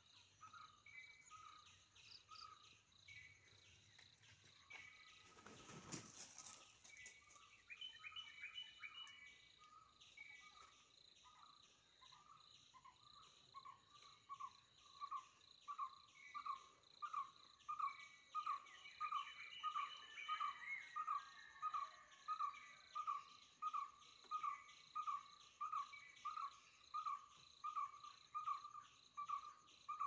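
Outdoor wildlife ambience: a steady insect drone with scattered chirps. From about halfway, one short note is repeated about twice a second at a steady pitch and grows louder. There is a brief bump about six seconds in.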